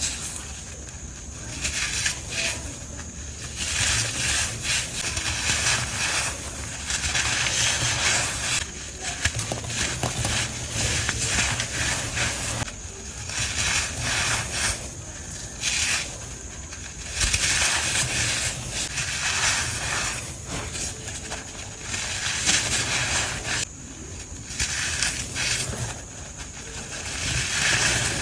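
Blocks of packed powder being crushed by hand, crunching in repeated bouts of one to three seconds with short pauses between.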